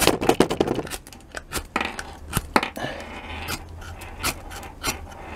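Awl of a Victorinox Swiss Tool struck repeatedly along a firesteel (ferro rod), a quick irregular run of sharp metal scrapes and clicks that is densest in the first second. The strikes are throwing sparks.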